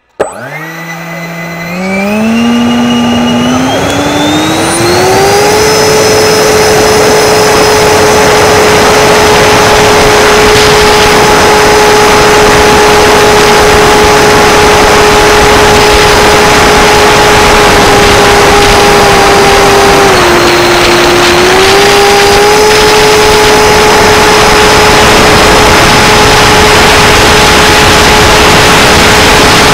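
105 mm electric ducted fan of an HSD F-16 RC jet spooling up, its whine climbing in steps over the first five seconds, then running steadily at high power with a loud rush of air. The whine drops briefly about two-thirds of the way through and comes back up. Heard through a camera mounted on the jet's airframe.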